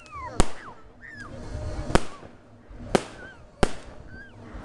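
Fireworks display: four sharp bangs of bursting shells, roughly one a second, with a few short falling whistles between them.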